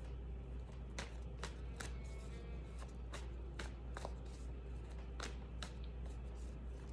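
A deck of tarot cards being shuffled by hand: a run of crisp card snaps, roughly one or two a second, over a steady low hum.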